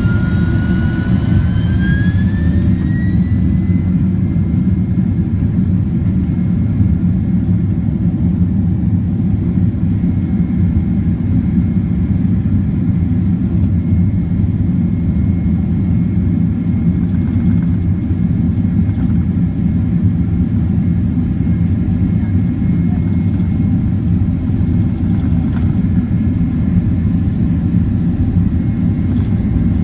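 Boeing 767-400ER's General Electric CF6-80C2 turbofans heard from the cabin over the wing. Their fan whine rises over the first few seconds as they spool up to takeoff thrust, then settles into a loud, steady roar through the takeoff roll.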